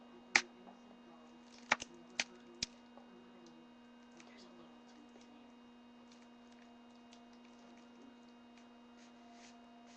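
Homemade toy rifle being handled, its stand moved: about five sharp clicks and taps in the first three seconds, then a few faint ticks. A steady low electrical hum runs underneath.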